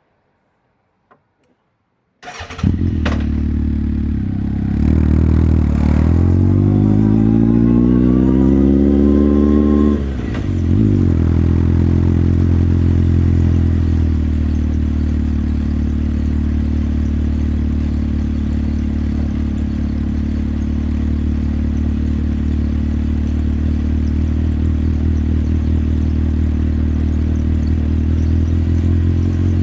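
Motorcycle engine starting about two seconds in, after a couple of faint clicks. Its pitch then rises steadily for several seconds, dips briefly, and settles into a steady even running note.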